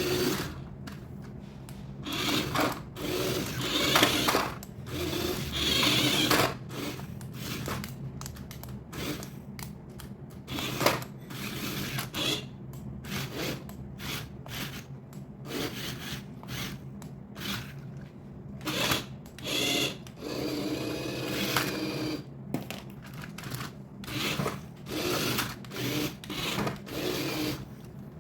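Handling noises: irregular rubbing, rustling and clicking, over a steady low hum.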